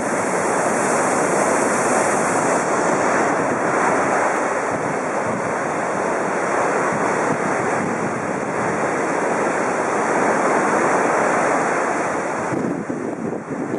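Rough sea surf breaking and washing up a sandy beach in a continuous rushing roar that swells and eases, with wind buffeting the microphone. The surf softens a little near the end.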